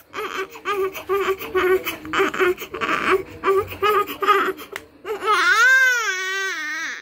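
Newborn baby crying: a run of short, fussy cries, then about five seconds in one long, louder wail that rises and falls in pitch.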